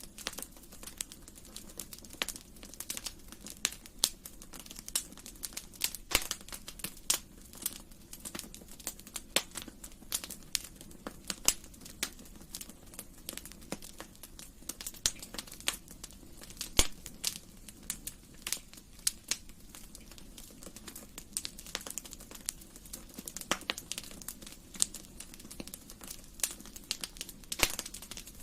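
Wood fire crackling in a fireplace: irregular sharp pops and snaps, several a second, over a soft steady low noise from the flames.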